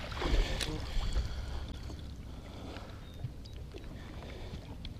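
Low, steady wind rumble and water lapping against a small fishing boat, with a few light knocks.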